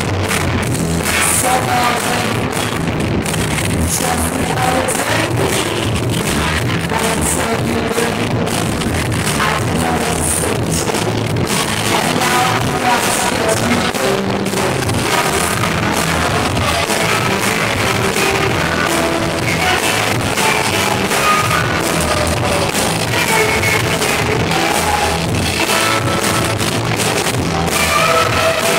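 Live band playing rock music: a woman singing over guitar and keyboard, in a poor-quality recording from the audience.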